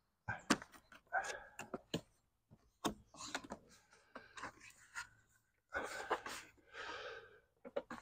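Cardboard box being unsealed and opened: a knife cutting through the sealing tape, then the flaps pulled open. It is faint, with scattered sharp clicks and short scraping rustles of cardboard.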